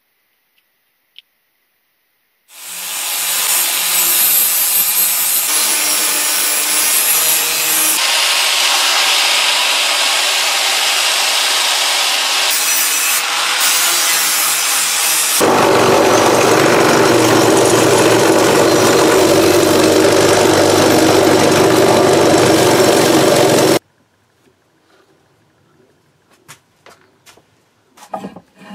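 Angle grinder grinding the steel of a rusty billhook blade for rust removal: a loud, steady grinding noise that changes tone partway through and cuts off suddenly. A few light knocks of wooden off-cuts being handled follow near the end.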